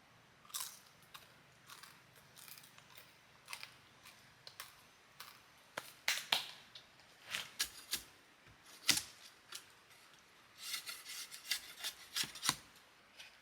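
Irregular sharp clicks and snaps, spaced unevenly, with a quick cluster of them near the end.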